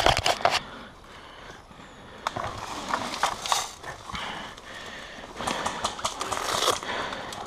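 Rustling and crackling of brush and leaves with uneven footsteps as a player pushes through vegetation, in two spells. A few sharp knocks at the very start.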